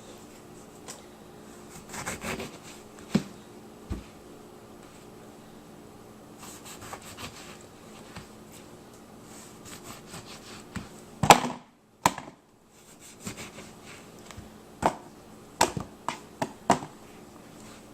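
Scattered knocks and clicks with some rustling over a faint steady hum. The loudest is a sharp knock about eleven seconds in, followed by a moment of dead silence.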